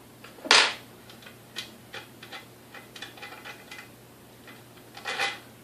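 A screwdriver backing screws out of a KitchenAid 3C mixer's housing: a short sharp scrape about half a second in, a run of light irregular ticks and clicks, then another brief scrape near the end.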